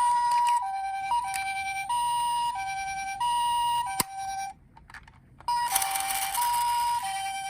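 Two-tone ambulance siren in the Japanese hi-lo style, alternating between a higher and a lower note about every two-thirds of a second. A click comes about halfway through, the siren drops out for about a second, then it starts again.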